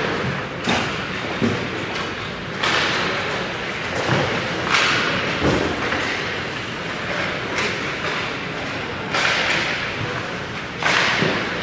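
Ice hockey play close to the goal: skate blades scraping and carving the ice in a few sharp swishes, with thuds and knocks of pucks and sticks against pads and boards, echoing in the rink.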